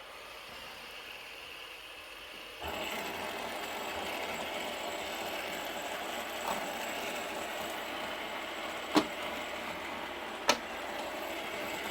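A cheap character fidget spinner set spinning about two and a half seconds in, its bearing giving a steady, loud whirring hiss, with three sharp clicks later on. The loud bearing noise is taken as a sign of a poor-quality, mass-produced spinner.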